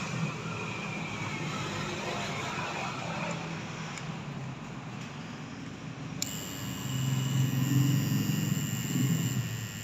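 Handheld hot stapler (plastic welder) humming as it heats a metal staple and melts it into the torn plastic bumper, the hum swelling about seven seconds in. A thin, high steady whine joins about six seconds in.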